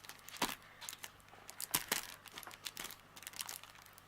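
A parcel's packaging crinkling and tearing as it is worked open by hand: irregular crackles, with two louder ones about half a second and nearly two seconds in.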